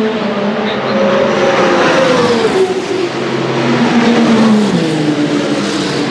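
Endurance racing cars running at speed on a circuit, several engines heard at once. Their engine notes fall in pitch twice, as cars go by or shift down.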